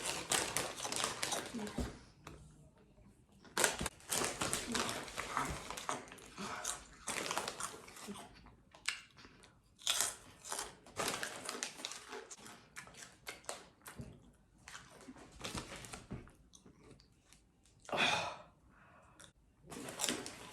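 Close-up crunching and chewing of spicy Cheetos, in irregular bursts of crackly crunches with short pauses between mouthfuls.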